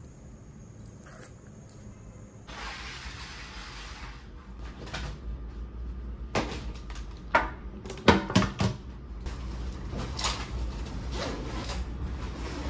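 Things being unpacked and handled: rustling and rubbing, with a scatter of short knocks and clatters as objects are picked up and set down, the loudest a quick cluster about eight seconds in. A steady low hum runs underneath.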